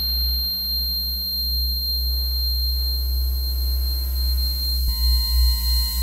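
Live electronic music: a deep, loud drone under several steady high sine tones. About five seconds in, further tones join and the drone begins to swell and throb.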